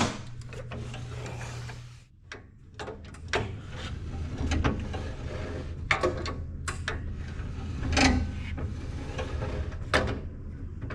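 Clicks and clunks from the Wood-Mizer EG100 edger's blade-spacing mechanism being worked on its new pawl cable, a dozen or so separate knocks over a steady low hum.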